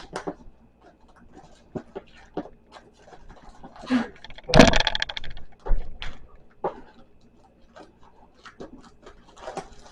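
Scissors and hands working at a shipping package: scattered snips, rustles and scrapes, with a louder crackling stretch of packaging noise about halfway through.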